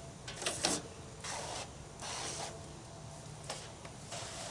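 Backpack sprayer wand spraying onto house siding in about four short hissing bursts, the loudest, with a few sharp clicks, about half a second in.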